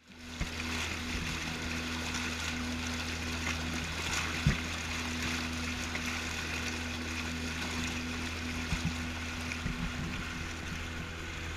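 Motorboat cruising on a river: the engine's steady low hum under the rush and splash of the wake along the hull, with a couple of short knocks, the clearest about four and a half seconds in.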